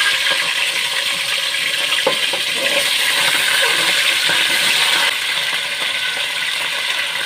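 Chicken pieces and potato chunks sizzling and crackling in hot cooking oil in a metal pot, with a single knock about two seconds in.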